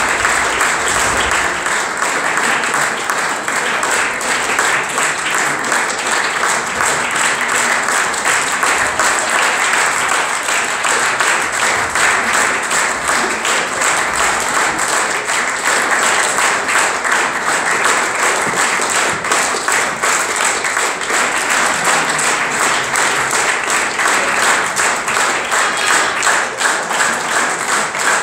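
Theatre audience applauding steadily, many hands clapping at once without let-up.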